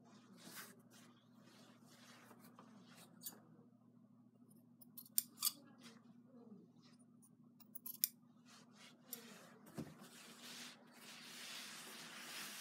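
Scissors trimming the corners of a fabric necktie: scattered snips with a few sharp clicks of the blades. Near the end there is a longer rustle as the cloth is handled.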